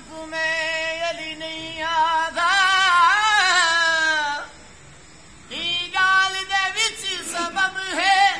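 A high solo singing voice holding long, wavering notes with strong vibrato. It breaks off for about a second midway, then returns in shorter phrases.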